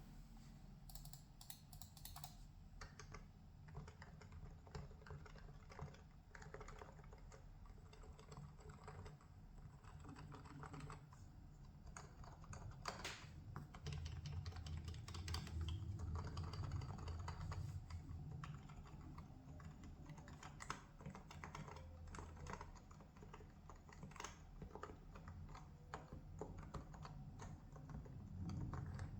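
Typing on a Topre Realforce R3HD21 keyboard, its electrostatic capacitive keys fitted with 2 mm spacers that shorten the key travel: a continuous, irregular stream of key strokes over a low steady hum.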